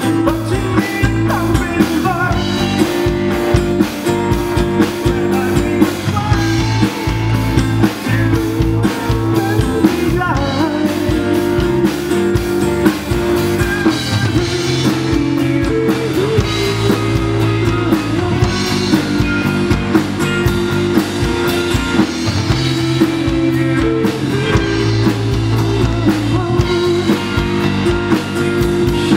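A live rock band performing: a man sings to his own strummed acoustic-electric guitar, backed by a drum kit, all through a concert PA.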